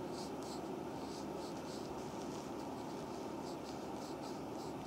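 Wooden reflexology stick and fingertips rubbing over an oiled foot sole in short, repeated strokes, a soft rubbing about two or three times a second over steady background noise.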